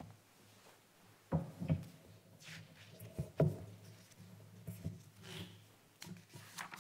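A book being handled and its pages turned on a wooden lectern: a few sharp knocks, the loudest about a second and a half in and again about three and a half seconds in, with soft page rustles between.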